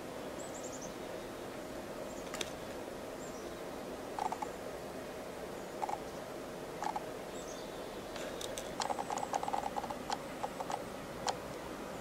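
Pileated woodpeckers pecking at a tree trunk: a few single knocks, then a quick run of knocks about nine seconds in, over a steady hiss.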